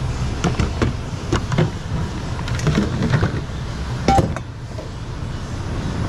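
Assorted household goods (plastic containers, metal pans and kitchenware) being shifted by hand in a bin: a string of knocks and clinks, the loudest about four seconds in, over a steady low rumble.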